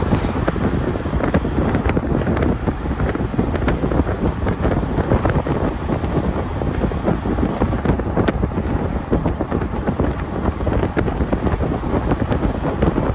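Wind buffeting the microphone: loud, gusty rumbling noise without a break.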